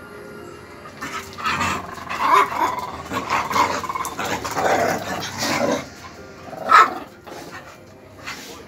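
Dogs, among them a five-month-old pit bull, play-fighting: irregular growls and barks, with one short, louder bark near the end.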